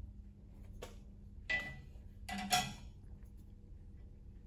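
Mostly quiet, with a faint steady low hum and a few soft, brief knocks and scrapes of a wooden block being handled on a scroll saw's metal table.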